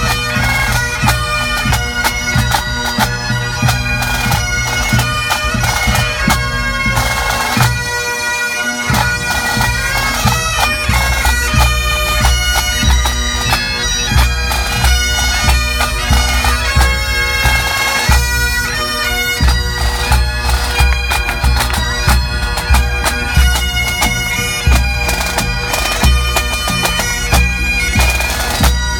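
Pipe band playing: several Great Highland bagpipes sounding a steady drone under the chanter melody, with snare drums and a bass drum beating time. The low drum beats grow heavier from about ten seconds in.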